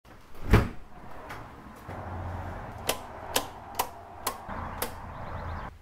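Circuit breakers in a breaker panel being snapped on one after another: a string of sharp clicks about every half second, the loudest near the start. A low hum comes up behind them about two seconds in.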